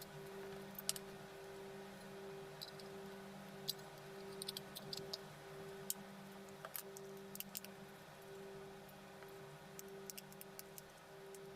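Faint steady hum at two pitches, with scattered light clicks and ticks.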